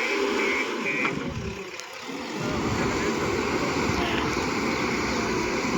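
JCB backhoe loader's diesel engine running under load, with its reversing alarm beeping about twice a second until about a second in. The engine noise drops briefly about two seconds in, then picks up again.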